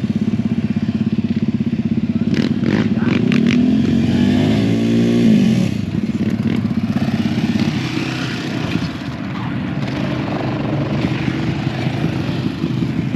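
Off-road vehicle engine running with a fast, steady pulse, revving up once about four seconds in, with a few sharp clicks just before the rev.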